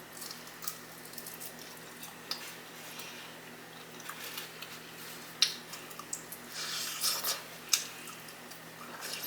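Close-miked eating sounds: chewing on sauced chicken wings with wet lip smacks and short sharp clicks, scattered and irregular, more of them in the second half.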